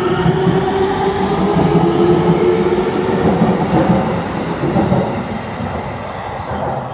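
Tsukuba Express electric train pulling out of the station and picking up speed along the platform: its drive gives a whine that rises in pitch over the running noise and wheel clatter. The sound fades near the end as the last car leaves the platform.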